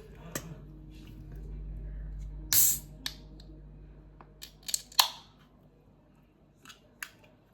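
Scattered short clicks and scrapes of handling, about eight in all, the loudest a brief scrape about two and a half seconds in, over a faint low hum.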